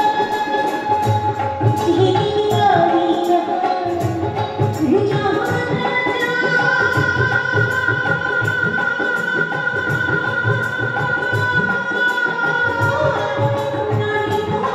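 Bhawaiya folk song performed live: a woman singing over a steady dhol and tabla beat, with harmonium, violin and dotara accompaniment. A long held high note runs through the middle.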